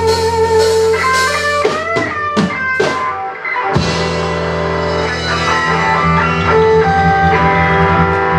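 Rock band playing live: electric guitars, bass guitar and drum kit, with a lead guitar holding sustained, bent notes with vibrato. Partway through the band breaks into a run of separate accented hits with sliding guitar notes, then comes back in together about four seconds in.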